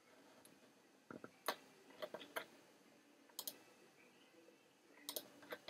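Faint clicks of a computer mouse, about ten scattered single clicks, some in quick pairs.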